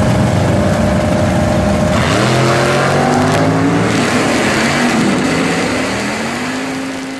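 Two vintage drag cars' engines running loud at the starting line, then launching about two seconds in and accelerating away down the strip. The engine pitch climbs, drops back at each gear shift and climbs again, and the sound fades as the cars pull away.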